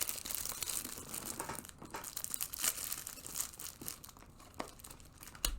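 Plastic packaging being torn open and crinkled by hand, an irregular run of crackling and rustling that thins out near the end.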